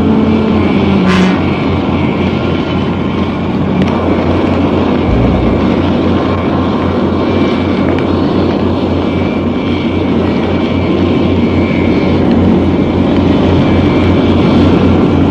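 Aircraft engines running: a loud, steady rush of engine noise with no break.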